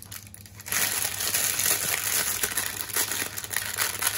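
Baking parchment and kitchen foil crinkling and rustling as they are pulled open by hand, starting softly and becoming a steady crackle within the first second.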